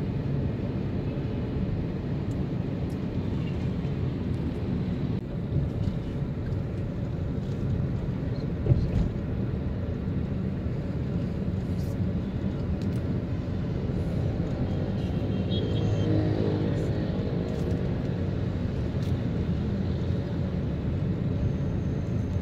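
Road noise heard from inside a moving car's cabin: a steady low rumble of engine and tyres in city traffic. There is a single thump about nine seconds in, and a short pitched sound from passing traffic a few seconds later.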